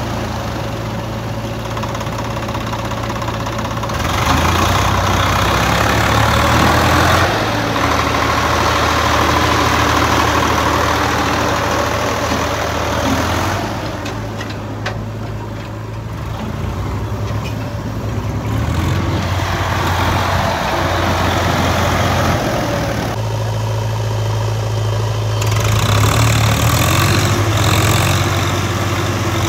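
Swaraj tractor's diesel engine running and pulling a trolley loaded with soil, its engine note rising and falling several times.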